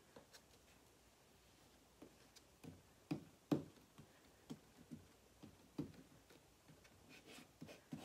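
Scattered light taps and knocks as a small plastic squeegee and a silkscreen are handled on a wooden tray, with the loudest pair of knocks a little past three seconds in.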